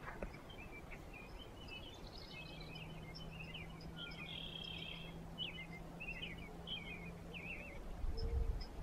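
Songbirds chirping in a quick series of short, varied notes, over a faint steady low hum. A low rumble comes in near the end.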